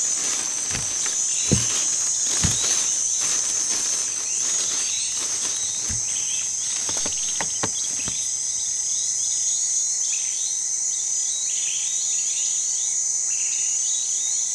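Steady high chirring of crickets, with short chirps over it. A few dull knocks fall in the first half.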